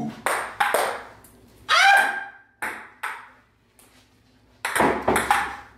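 Table-tennis rally: the celluloid ball clicks sharply off paddles and the table, three quick hits in the first second, two more around three seconds in and three more near the end. A short high squeal about two seconds in is the loudest moment.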